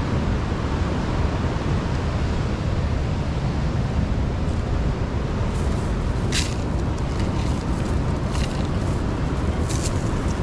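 Steady rushing outdoor noise, strongest in the low range. From about six seconds in it is broken by a few short rustles and clicks as a nylon cast net and its weighted edge are gathered up and shaken.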